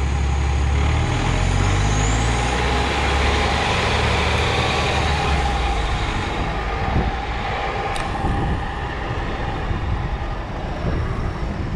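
City bus engine idling, then revving up with a rising drone as the bus pulls away from a stop about a second in; the drone fades after about six seconds, leaving steady street and road noise.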